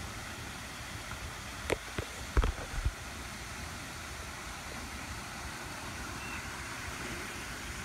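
Steady outdoor background noise, with a few short knocks about two seconds in.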